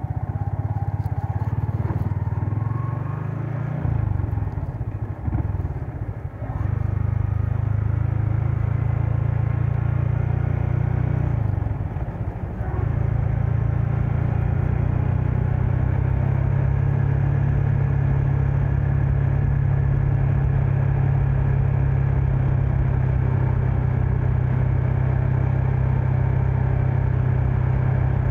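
Yamaha MX King 150's single-cylinder four-stroke engine running as the motorcycle is ridden. The engine note changes and dips briefly about five seconds in and again about twelve seconds in, then holds steady.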